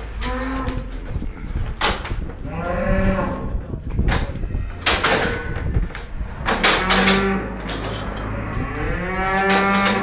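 A cow mooing loudly several times, each call rising and falling, the last one long and building near the end, with sharp knocks in between.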